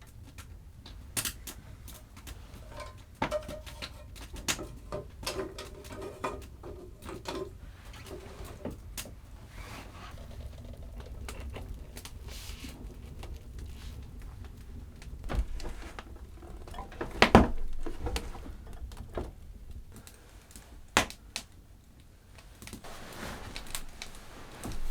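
Scattered clicks and knocks of objects being handled in a small wooden room, the loudest a sharp knock about 17 seconds in, over a low steady rumble.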